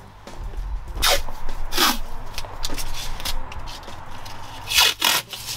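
Masking tape being pulled off the roll in short, loud rasping rips, four of them: one about a second in, one near two seconds, and two close together near the end.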